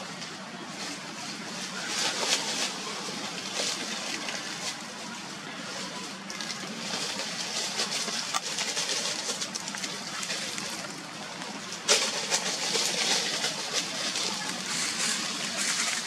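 Dry fallen leaves rustling and crunching in irregular bursts, with a sharp snap about twelve seconds in.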